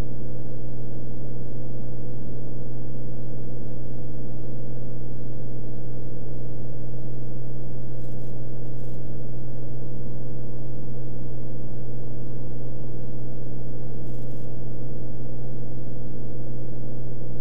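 Beechcraft Bonanza F33's six-cylinder Continental engine and propeller droning steadily in flight, heard from inside the cockpit.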